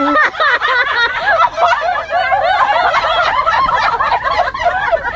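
Several people laughing and giggling together, their voices overlapping.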